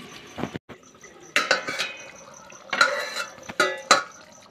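Steel lid of a cooking pan handled and lifted off with a cloth: four sharp metallic clanks of lid against pan rim, each with a brief ringing, spread over a few seconds.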